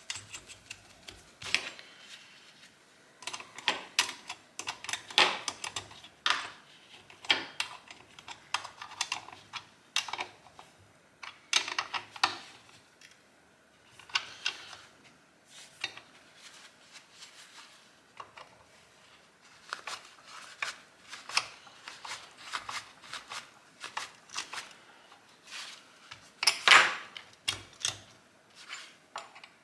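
Irregular clicks, clinks and knocks of hand tools and chainsaw parts being handled during reassembly of a chainsaw, coming in clusters, with one louder knock near the end.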